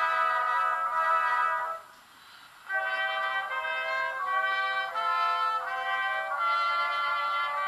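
Church brass choir (Posaunenchor) playing sustained chords in a slow, chorale-like style. One phrase ends about two seconds in, and after a short breath the next phrase begins.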